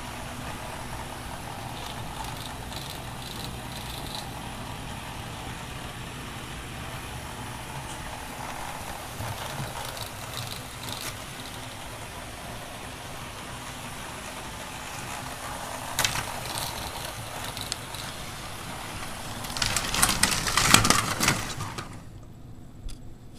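Model train running steadily on sectional track, its motor and wheels making an even whirr with light clicks, then a burst of loud clattering near the end as cars derail and pile up.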